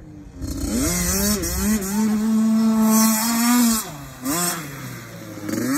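Small youth dirt bike engine revving up about a second in and holding a high steady pitch as it rides past. It drops off near four seconds, then revs up briefly twice more.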